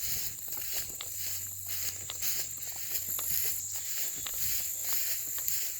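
Footsteps walking at about two steps a second, over a steady high-pitched chorus of insects trilling in the field.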